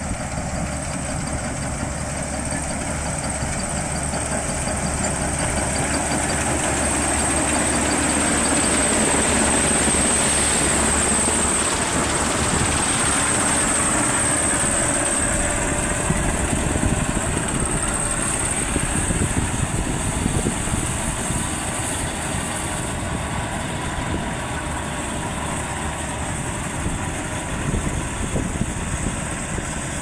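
Maxxi Bimo 102L combine harvester running steadily under load as it cuts and threshes standing rice. The engine and machinery grow louder toward the middle as the machine comes close, then ease off.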